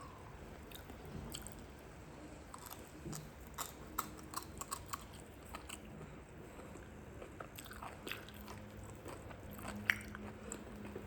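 A person chewing food close to the microphone, with soft mouth sounds and many small irregular clicks and crunches.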